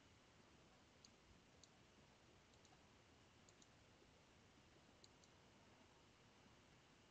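Near silence, with a few faint computer mouse clicks, some in quick pairs, over a low steady hiss.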